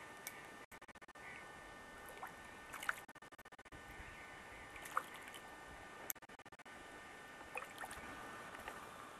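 Faint small water splashes and drips, a handful of short sharp ticks over a low steady hiss, as a hooked trout is brought in at the surface.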